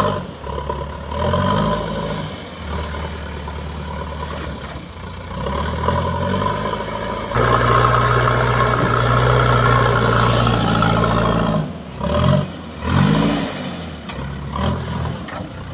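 Loader's diesel engine working as its front bucket pushes and lifts snow off the road, revving up and down several times and holding high revs for a few seconds in the middle.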